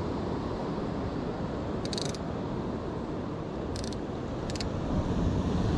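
Steady rushing noise of wind and surf at an ocean pier, broken by three short, high-pitched crackles, the first about two seconds in.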